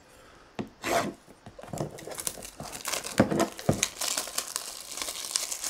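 Plastic packaging on a sealed trading-card pack crinkling and tearing as it is unwrapped and opened by hand, with a dense run of crackles.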